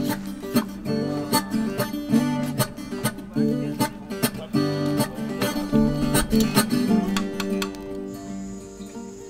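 Background music: an acoustic guitar strumming a steady rhythm. Near the end the strumming fades into softer held notes.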